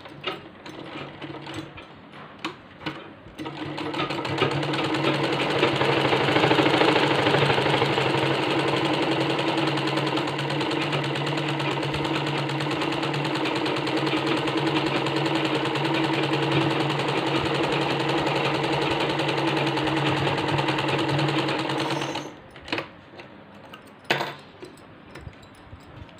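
Sonata sewing machine running steadily for about eighteen seconds as it stitches a T-shirt side seam, with a few clicks as it starts and a sudden stop near the end, then a couple of sharp clicks.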